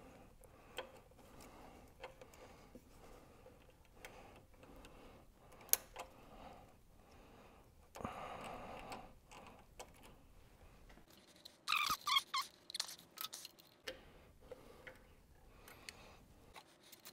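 Small plastic clicks and rustling as a nylon zip tie is worked around rubber fuel and vent hoses. About twelve seconds in comes a quick run of sharper ratcheting clicks as the tie is pulled through its buckle.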